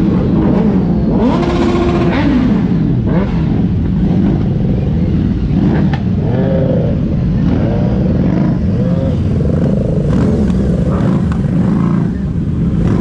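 Sport motorcycle engines revved again and again, the pitch climbing and falling with each blip of the throttle over a steady idle rumble.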